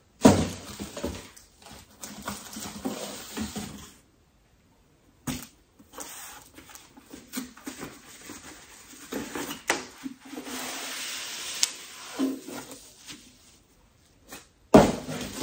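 Cardboard boxes and packing paper being handled: rustling, scraping and light knocks as a box is opened and a wrapped item is lifted out. A second or so of silence falls about four seconds in.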